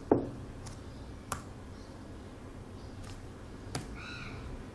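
A handful of short, sharp clicks from a computer keyboard and mouse, spaced irregularly over faint steady background noise; the first, just at the start, is the loudest and carries a soft thump.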